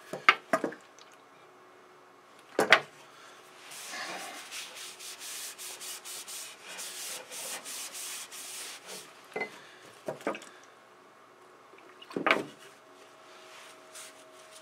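Cloth rag rubbing boiled linseed oil back and forth along a wooden hatchet handle, a quick rhythmic rustling through the middle of the stretch. A few sharp knocks stand out louder, at the start and several times later, as the hatchet and oil can are handled on the wooden workbench.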